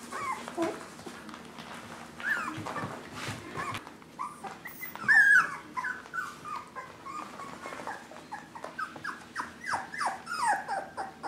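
Five-week-old mini Swiss Mountain Doodle puppies whining: short, high calls that each fall in pitch. They are sparse at first, then come two or three a second from about halfway through, with one louder call about five seconds in.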